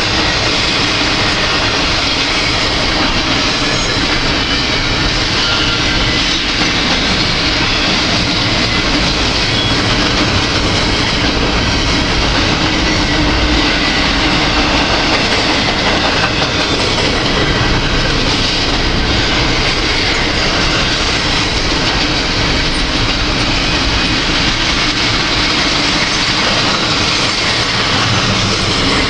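Double-stack intermodal freight train's container cars rolling past, a loud, steady sound of steel wheels running on the rails.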